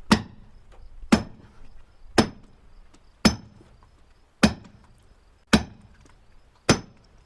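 Splitting maul striking a steel wedge driven into a black oak log, seven heavy blows at about one a second, each with a short metallic ring.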